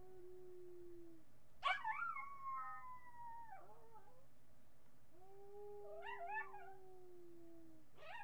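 Miniature pinscher howling. A long, low, steady howl ends about a second in, then a sharp, louder, higher-pitched howl slides downward over about two seconds. A second long low howl follows, with a few wavering higher notes over it, and another high howl starts right at the end.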